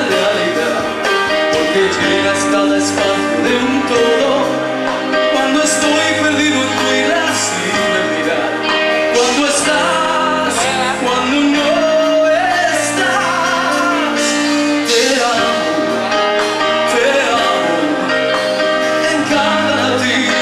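Hard rock band playing live: a male singer over electric guitar, bass and drums.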